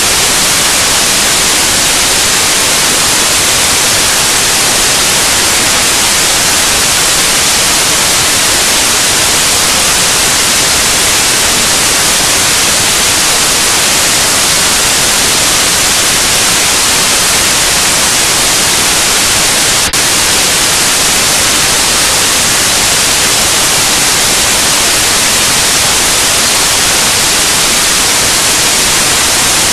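Loud, steady hiss of static (white noise) with no tone or rhythm in it, broken only by one brief glitch about twenty seconds in.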